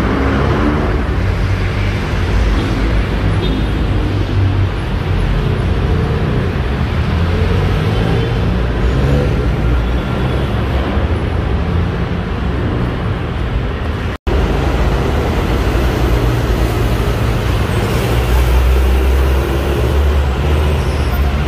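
Steady city road traffic: engines and tyres of passing cars and buses with a continuous low rumble. The sound cuts out for an instant about two-thirds of the way through.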